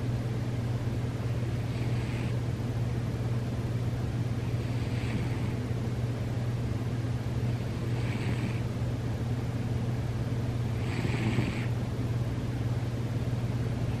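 Sleeping cat snoring: a short, hissy, wheezy snore with each breath, about every three seconds, over a steady low hum.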